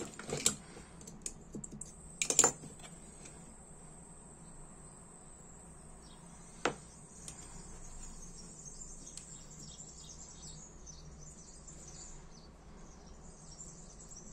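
Small sharp metal clicks as tools and lighter parts are handled on a workbench, the loudest about two and a half seconds in and a single one near seven seconds. A faint, steady high-pitched hum runs underneath.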